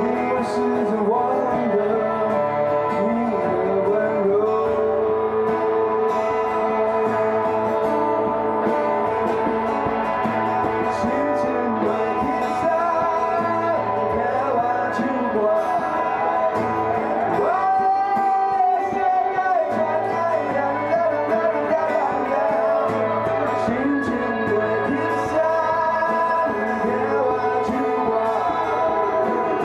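Live band music: a man singing into a microphone over guitars, holding one long note a little past the middle.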